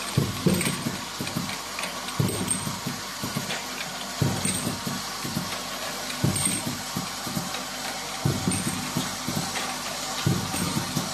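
Desktop dropper-bottle filling and capping machine running: a steady mechanical hum and hiss with a low clunk about every two seconds, once for each machine cycle.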